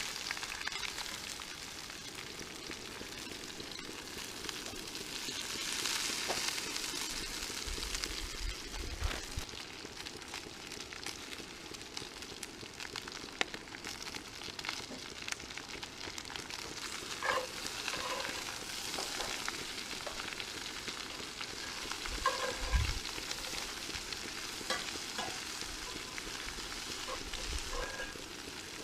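Food sizzling and frying in a pan for a breakfast bowl, with a utensil stirring and scraping, tapping the pan now and then.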